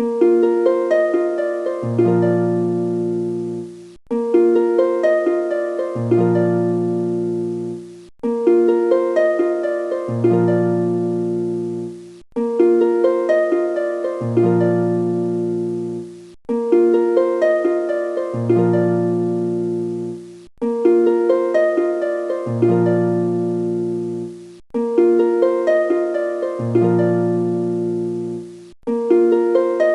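Background music: a gentle plucked-string instrumental loop, the same short rising phrase repeating about every four seconds with a brief break before each repeat.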